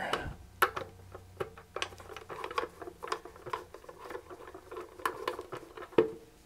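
Irregular small clicks, taps and light rattles of hands handling a screwdriver and the mixer's metal case on a wooden workbench, with a sharper click about six seconds in as the screwdriver meets a bottom-panel screw.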